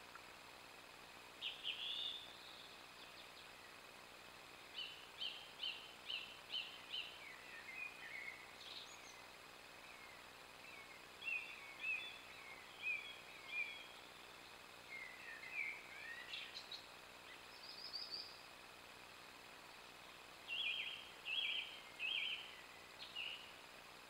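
Song thrush singing, with short clear phrases each repeated two to five times before it moves on to the next.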